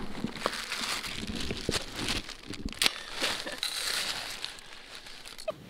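Powder snow crunching and crackling in irregular small bursts as it is scooped and packed into a pot for melting.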